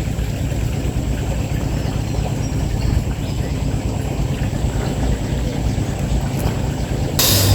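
Steady low motor-like hum under a constant noise, with a brief hiss about seven seconds in.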